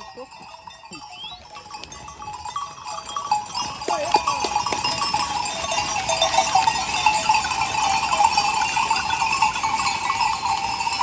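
A flock of sheep walking past with many bells ringing at once, a dense clanking that grows louder about three seconds in as the flock comes close. A sheep bleats once about four seconds in.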